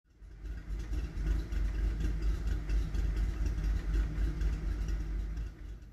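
Car engine idling, heavy in the low end with an even pulsing rhythm; it fades in at the start and stops shortly before the end.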